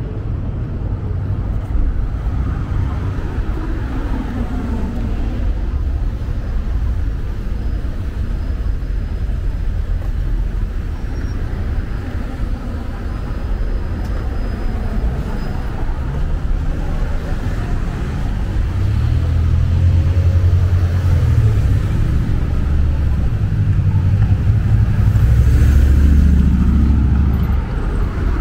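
Street ambience with road traffic running, growing louder in the second half and easing off near the end, with faint voices of passers-by.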